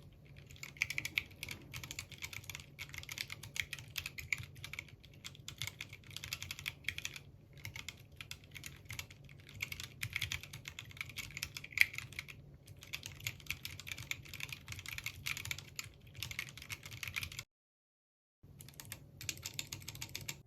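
Typing on an ErgoDash split mechanical keyboard: a quick, irregular run of key clicks that breaks off for about a second near the end, then resumes.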